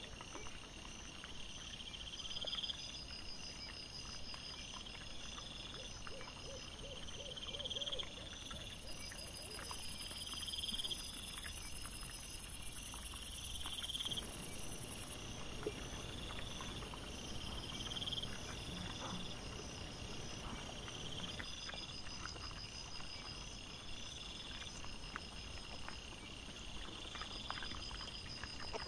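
Night insects chirping, crickets in a steady repeating pattern with a pulse about every second and a half, over scattered soft clicks and rustles. A louder high hiss comes in about eight seconds in and lasts some six seconds.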